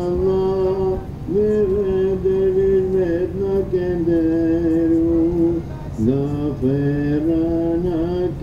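A voice singing an ilahi, a Sufi devotional hymn, in long held notes that bend and slide in pitch, with short breaks for breath about a second in and again about six seconds in, over a lower steady sound beneath.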